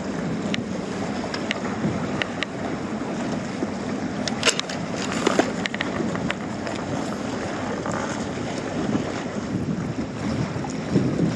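Wind buffeting the microphone over the wash of sea waves, with a few sharp clicks about halfway through.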